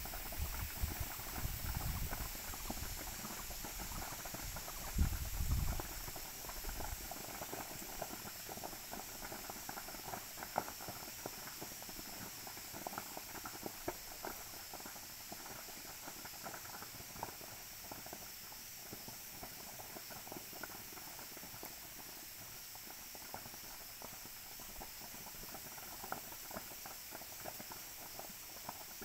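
Distant crackling of a slash-and-burn jhum fire: many small, irregular pops. A low rumble runs under it for the first six seconds or so.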